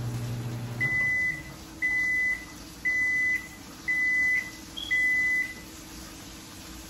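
Microwave oven finishing its cycle: its running hum cuts off about a second in, then it gives five long beeps about a second apart.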